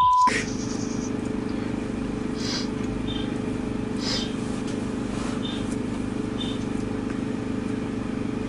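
A short censor bleep at the very start, then a steady low mechanical drone with a faint hum, engine-like, broken only by a few faint soft hisses.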